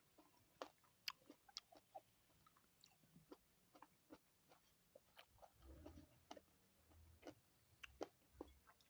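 A person chewing fruit: faint, irregular wet clicks and smacks of the mouth, a few a second.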